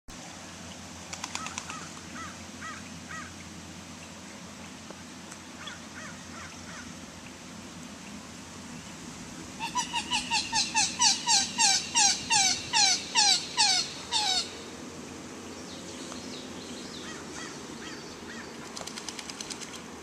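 A goose honking in a long, loud run of evenly spaced honks, about three a second, each dipping in pitch, starting about ten seconds in and lasting some five seconds. Fainter bursts of waterfowl calls come before and after.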